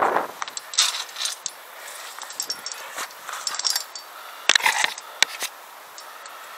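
Via ferrata climbing gear clinking and jangling: metal carabiners and harness hardware knocking together in scattered clicks, with a tighter cluster about four and a half to five seconds in.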